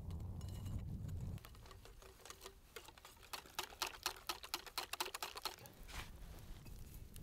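Wire whisk beating crêpe batter in a glass bowl, the wires clicking rapidly against the glass, about five clicks a second. A low rumble comes first, for the opening second or so.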